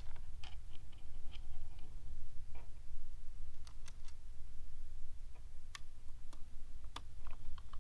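Scattered small clicks and ticks, about a dozen at uneven intervals, from a hand screwdriver and small parts as screws are tightened into the aftermarket dash screen's mounting plate, over a steady low hum.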